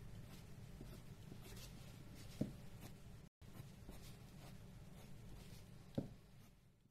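Pencil lead scratching faintly on paper as outlines are sketched, over a low steady hum, with two soft knocks about two and a half and six seconds in.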